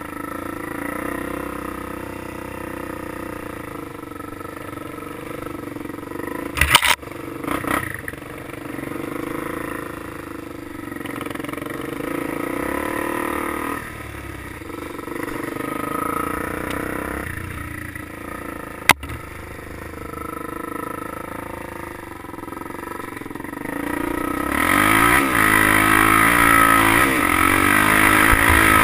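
A quad bike (ATV) engine running under the rider on a bumpy dirt trail. A few loud knocks come about seven seconds in and a sharp click at about nineteen seconds. About twenty-five seconds in the engine revs up hard, its pitch climbing again and again as it accelerates.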